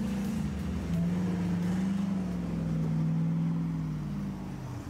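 Hummer H2's V8 engine under load as the lifted truck drives through deep mud and water, its note rising and falling with the throttle and easing off near the end, over the splash and churn of the tyres.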